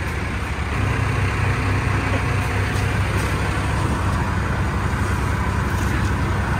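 Tractor engine running steadily, picking up slightly about a second in.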